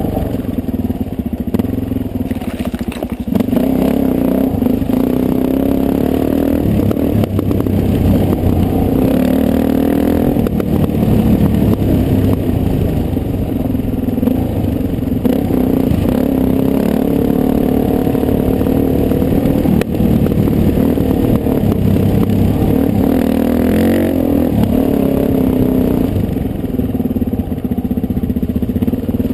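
Dirt bike engine running as the bike is ridden along a rough trail, its pitch rising and falling with the throttle. It is heard close up from a helmet-mounted camera.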